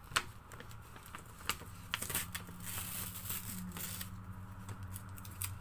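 A stiff kraft-paper envelope being picked at and peeled open by hand: paper crinkling and rustling with scattered sharp crackles, over a faint steady low hum.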